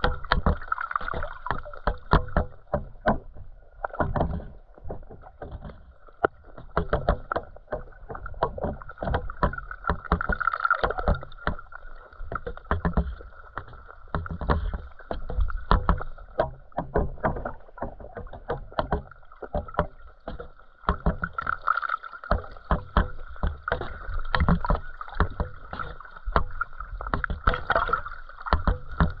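Underwater sound picked up by a GoPro in its waterproof housing: a steady muffled hum with many irregular clicks and knocks, several a second.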